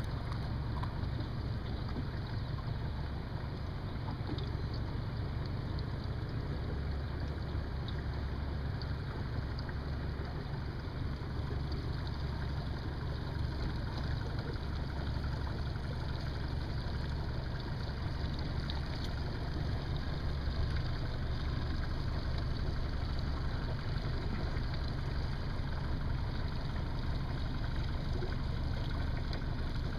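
Yamaha 115 outboard motor running steadily as the boat moves across the lake, a constant low drone with water noise underneath.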